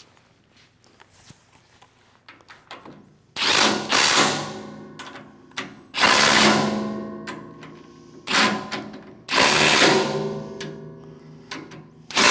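Compact cordless impact wrench (Milwaukee Fuel) run in short bursts, about six, starting about three seconds in. It is spinning 3/8 flanged nylock nuts down onto the carriage bolts of a UHMW plastic side guide.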